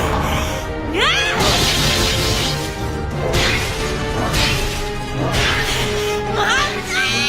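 Film-score music laid over a film fight scene, with crashes and smashes. There are rising swooping sounds about a second in and again near the end.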